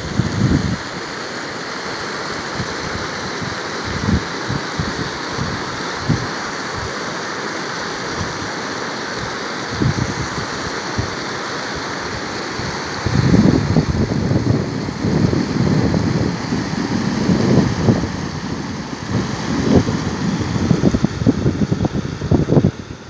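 Muddy flash-flood water rushing steadily across a wide wash. From about halfway through, wind buffets the microphone in low, irregular gusts.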